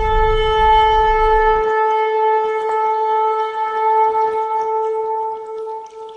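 One long horn-like note held steadily at a single pitch, dying away near the end. A low rumble beneath it stops about a second and a half in.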